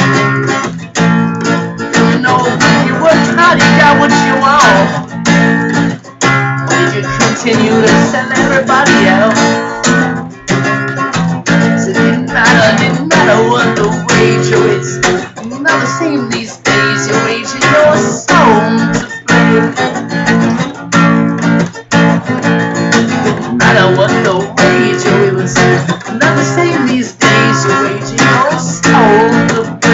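Acoustic guitar strummed in a steady rhythm, with a harmonica in a neck holder playing melody lines over it, the notes bending up and down.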